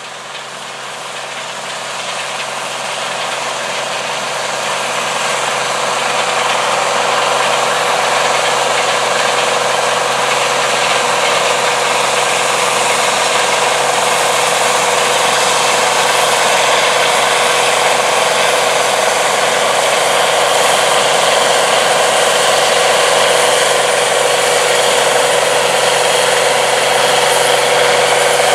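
International 1460 Axial-Flow combine harvesting soybeans: its diesel engine and threshing machinery run at a steady drone. The sound grows louder over the first several seconds as the combine draws near, then holds steady.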